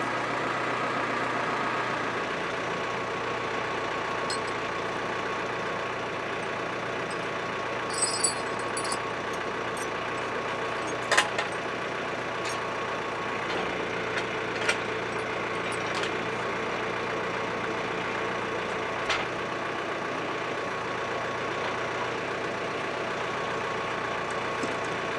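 Farm tractor engine idling steadily, with a few sharp metal clinks of choker chain and hook, the loudest about eleven seconds in.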